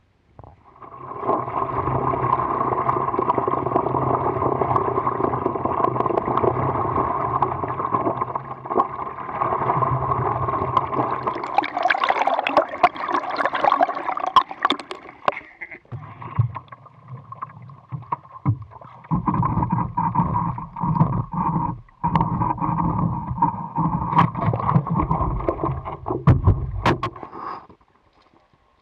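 Water sloshing and splashing around a stand-up paddleboard as it is paddled, with paddle strokes in the water. The sound cuts off suddenly near the end.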